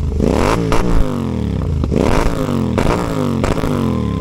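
Royal Enfield Continental GT 650 parallel-twin with a loud modified exhaust, revved in a series of quick throttle blips about a second apart: each time the engine note climbs sharply and falls away, with pops and crackles from the exhaust as the revs drop.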